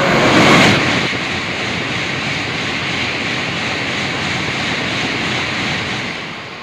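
A Shinkansen bullet train passing through the station at full speed without stopping: a loud, steady rush of air and wheels on rail. It is loudest about half a second in as the nose goes by, holds while the cars stream past, and fades near the end.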